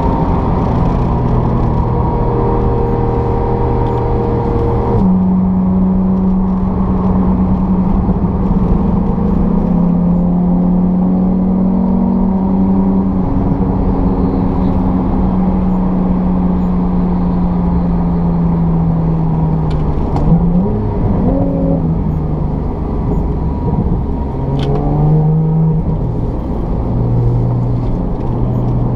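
Porsche 911 (991) Carrera GTS's naturally aspirated 3.8-litre flat-six heard from inside the cabin at speed on a racetrack, over tyre and road noise. The engine note jumps up in pitch about five seconds in, sinks slowly over several seconds, then swings quickly up and down a few times later on.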